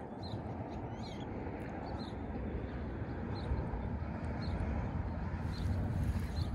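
Wind buffeting the microphone, a steady low rumble that grows a little stronger, with short high chirps from small birds scattered throughout.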